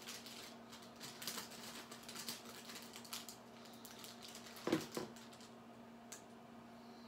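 Light tapping and clattering of small objects being handled, with one louder knock a little under five seconds in, over a steady low hum.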